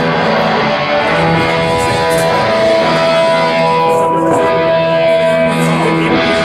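Guitar music with strummed chords and held notes, loud and steady.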